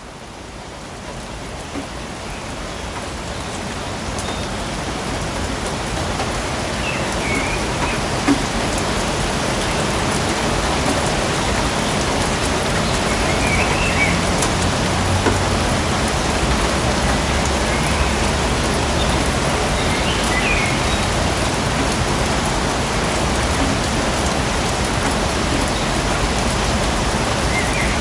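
Steady rain falling on foliage and ground, fading in over the first several seconds and then holding even. A few short high chirps sound now and then above the rain.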